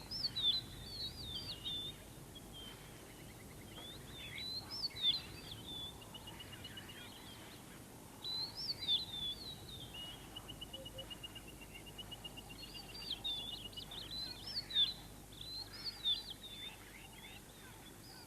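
Wild birds singing: short warbling phrases repeated every second or two, and long, rapid, even trills, over a steady low background hiss.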